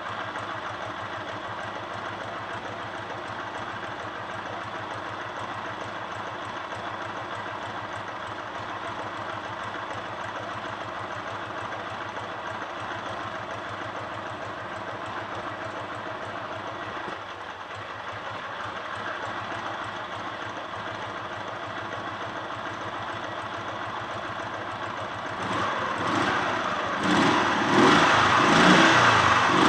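Dnepr MT 10-36 motorcycle's flat-twin engine idling steadily, with a knock whose cause the owner is trying to find. Near the end it is revved up several times, louder, in pulses.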